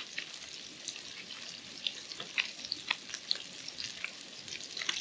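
Fish pieces shallow-frying in oil in a pan on a Trangia alcohol stove: a steady sizzle with scattered small pops and crackles.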